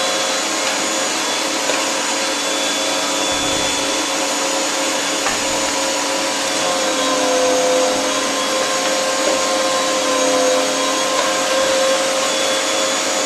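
Arçelik K 1766 1400 W electric meat grinder running steadily with a whining motor hum while minced meat is pushed down its feed tube with the plunger for a second, finer grind. The hum sags slightly in pitch for a few seconds midway, and there are a couple of dull knocks a few seconds in.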